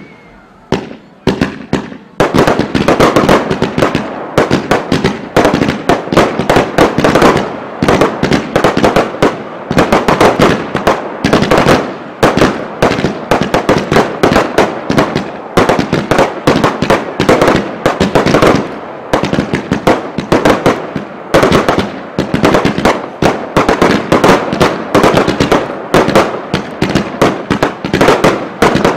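Fireworks barrage fired at close range: a few separate bangs, then from about two seconds in a dense, continuous run of launch and burst bangs and crackles.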